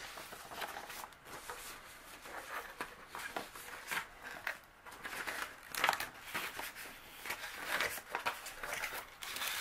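Rustling and light knocks of paper and cardboard being handled as a cardboard box lid is lifted open, with tissue paper inside.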